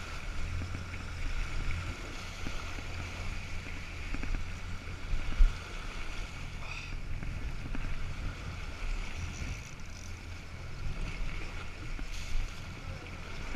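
A boat's motor running under way, with the wake churning and splashing behind the stern and wind on the microphone. A single knock about five seconds in.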